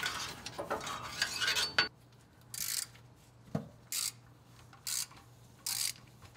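Socket ratchet on a long extension backing out a steel transmission bell-housing bolt. About two seconds of dense clicking and scraping, then short bursts of ratchet clicks roughly once a second.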